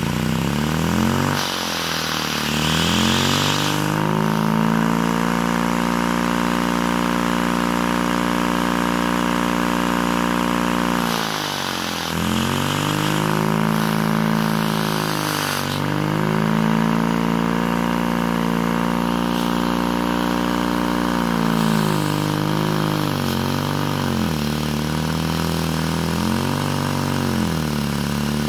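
Home-built Lego air turbine spun by a vacuum cleaner hose, whirring with a siren-like tone over the steady running of the vacuum cleaner. The pitch rises about a second in, sags and recovers a couple of times midway, and dips several times in quick succession near the end as the rotor's speed changes.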